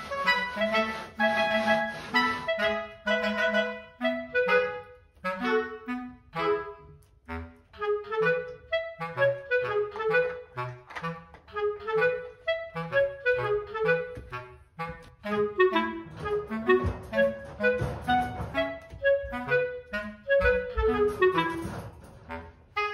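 Background music: a melody of short, quick notes on a wind instrument.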